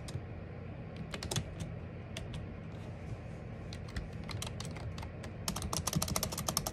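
Typing on a computer keyboard: scattered key clicks, coming in a quick, dense run near the end.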